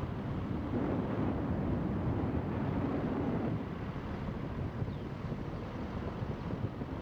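Wind buffeting the microphone over the low rumble of a car driving along a paved road. The rush is strongest in the first half and eases a little after about three and a half seconds.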